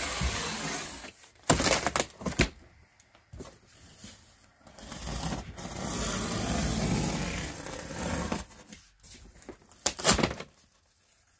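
Box cutter slicing through thick corrugated cardboard on the side of a pallet box. A few sharp knocks come early, then one long drawn-out cut, and a sharp rip near the end as the cut panel is pulled free.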